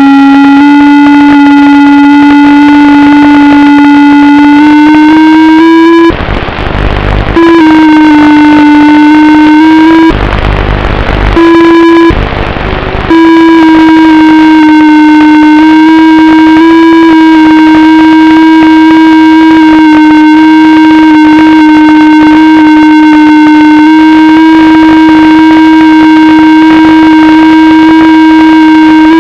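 FPV drone motors whining at a steady, nearly constant pitch. The sound is broken three times by loud bursts of hiss about six, ten and twelve seconds in.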